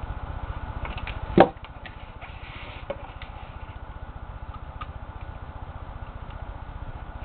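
Small clicks and taps of a jeweller's screwdriver and plastic parts as a tiny screw is driven into a PSP 2000 Slim's faceplate, with one loud sharp knock about a second and a half in, over a steady low hum.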